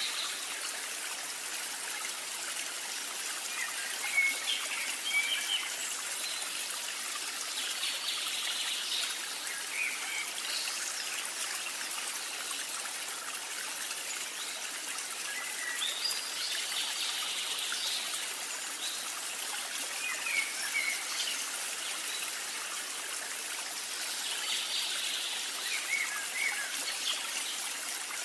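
Steady trickling stream with short bird chirps, the same stretch of water and chirps coming round again about every eight or nine seconds. A sharp tap stands out about four seconds in.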